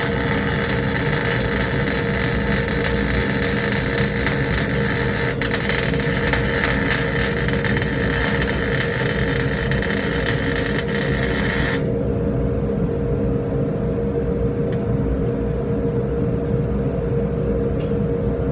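Steady, loud machine noise with a constant hum. About twelve seconds in it changes abruptly to a duller, lower noise.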